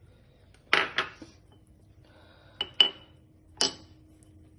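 Cooking utensils clinking and knocking against a pan as nuts are added to besan halwa: five sharp clinks, the loudest a little under three seconds in.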